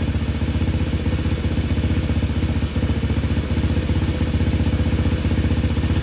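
Honda S65's small single-cylinder four-stroke engine idling steadily, with an even, fast low pulse.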